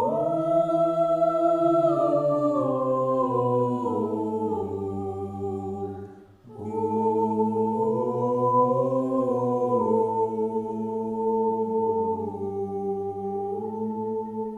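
A choir singing a cappella in long held chords. The harmony falls step by step in the first phrase, breaks off briefly about six seconds in, then a second sustained phrase follows.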